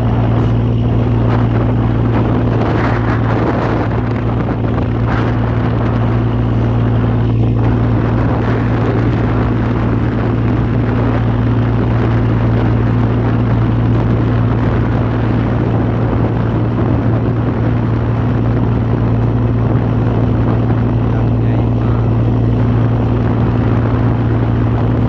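Steady drone of a boat's engine: an unchanging low hum with a second hum an octave above, over a constant rushing noise of wind and water.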